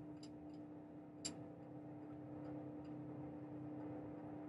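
A few faint metallic clicks and clinks of hand tools being worked in the engine bay, the clearest about a second in, over a low steady hum.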